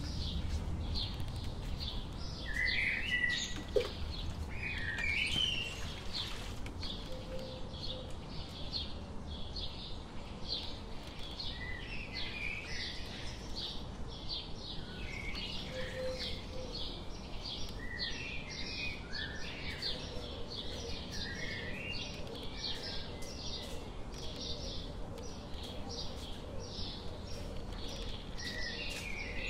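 Small birds chirping steadily: a quick run of short, high chirps, with lower call notes now and then. A single sharp knock about four seconds in.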